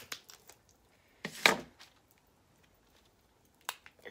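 Kitchen shears cutting into a snow crab leg's shell: a few small clicks, then one loud crack about a second and a half in. A single sharp click near the end.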